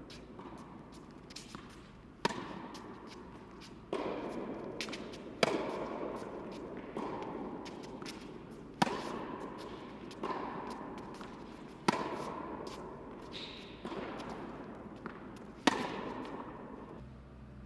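A tennis rally: rackets strike the ball with a sharp pock about every one and a half seconds, and the louder, closer hits come about every three seconds. Each hit echoes through a large indoor tennis hall.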